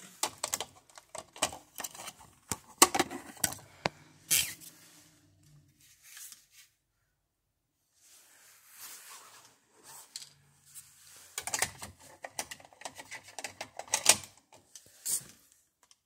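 Handling noise: irregular clicks, taps and rustling in two spells, with a short lull about halfway through.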